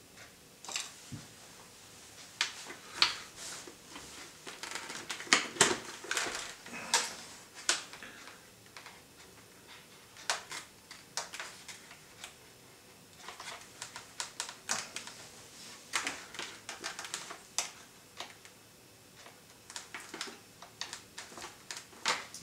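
Irregular clicks, taps and short rustles of a motorcycle helmet's plastic shell and padded interior being handled and worked on by hand.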